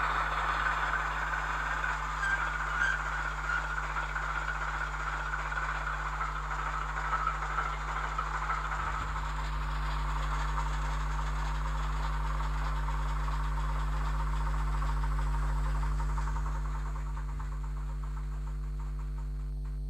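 Model train locomotive running on its track: motor whir and wheel noise on the rails, fading out about halfway through and leaving a steady electrical hum.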